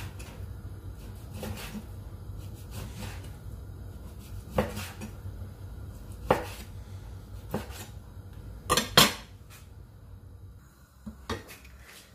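Kitchen knife cutting raw pork into bite-size pieces on a wooden cutting board, a sharp knock on the board about every second and a half, two loud ones close together past the middle. A steady low hum lies underneath.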